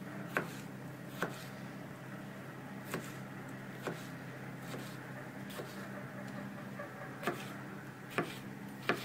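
Kitchen knife chopping a tomato on a wooden cutting board: irregular knocks of the blade on the board, about seven in all, over a steady low hum.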